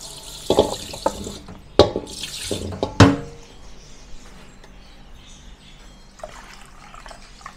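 Water poured from a pot into a straining bag of boiled wolffia (khai phum) set in a stainless steel bowl, splashing in two short pours, rinsing the wolffia clean. A few sharp knocks come with it, the loudest about three seconds in, then it quiets to a trickle.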